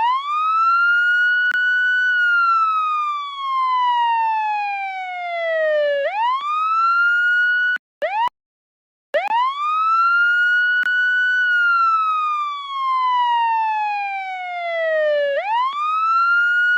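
Police siren wailing: each cycle sweeps quickly up, holds high, then slides slowly down over about four seconds before sweeping back up. About eight seconds in it cuts off abruptly into silence for about a second, then starts again.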